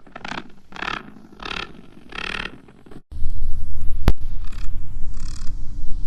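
Spider sound effect: four short raspy scraping noises about two-thirds of a second apart. About three seconds in, a loud low rumble starts, with a sharp click a second later and fainter raspy noises after it.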